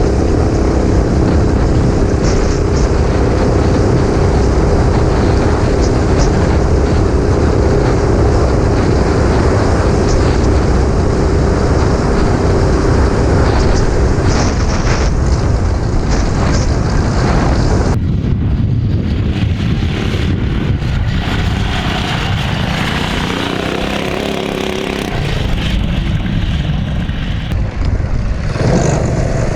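Mini bike's stage 2 Predator 212 single-cylinder four-stroke engine running under load with a steady drone. The sound changes abruptly about two-thirds of the way through and again near the end, like cuts between riding shots.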